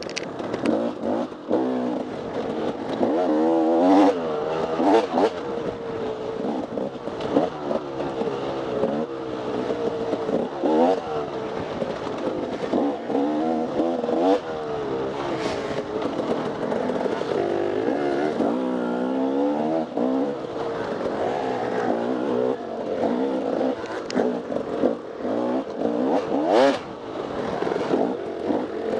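Off-road dirt bike engine revving up and down without a break as the throttle is worked, with a few sharp knocks and clatters along the way.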